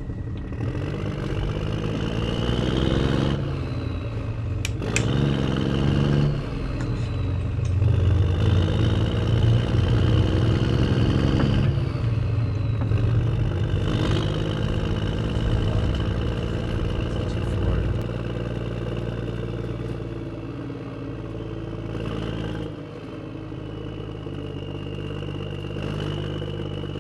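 A motor-driven machine running steadily, its pitch rising twice in the first few seconds before settling to a steady drone, with a few sharp knocks.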